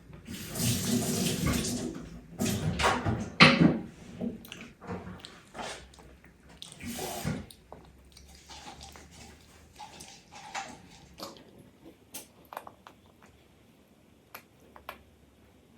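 Oat milk being poured into a cup, a splashy run of liquid at the start and again briefly about seven seconds in, with scattered light clicks and taps of tableware in between.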